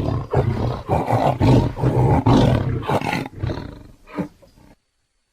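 A big cat roaring in a run of rough, deep roars, about two a second, fading out about four and a half seconds in.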